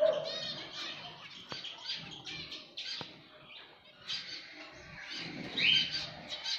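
A colony of Java sparrows and small finches in an aviary, chirping and calling: many short chirps overlapping, with a louder call a little after five seconds in.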